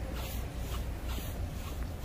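Walking footsteps on brick paving, about two steps a second, over a steady low rumble.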